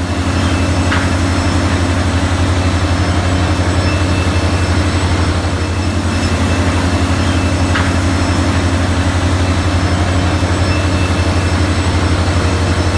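Electric woodworking power tool running steadily under load while surfacing a cherry slab, with a strong low hum and a fast, even pulse.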